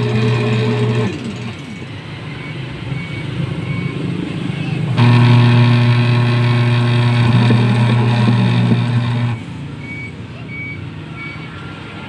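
Washing machine drive motor humming as it turns the belt and pulleys, stopping and starting: it runs for the first second, cuts out, runs again from about five seconds in for about four seconds, then cuts out. Between runs there is a quieter, rough low noise.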